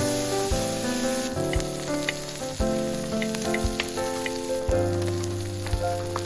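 Food frying and sizzling, with small crackling pops, over background music of plucked acoustic guitar notes.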